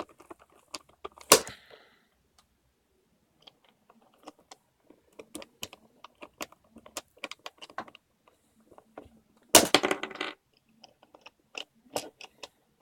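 Plastic pieces of a Dayan Zhanchi 3x3 speed cube clicking and clacking as they are handled and pushed into place during reassembly. A sharp clack about a second in and a louder rattle of clacks near ten seconds.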